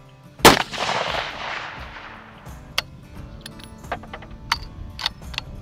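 A single 6.5 Creedmoor rifle shot about half a second in, its report trailing off over about two seconds. It is followed by a few light clicks as the bolt is worked.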